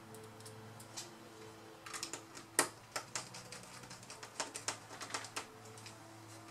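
A quick run of small clicks and taps as plastic and metal laptop parts are handled and pressed into the chassis during reassembly, loudest about two and a half seconds in.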